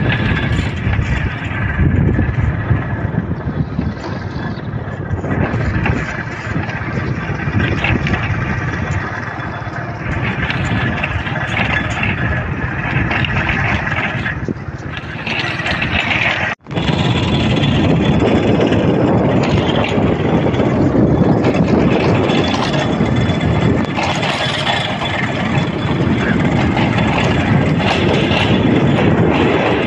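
A motor vehicle running steadily on the move, with wind and road noise. The sound drops out for an instant a little over halfway through.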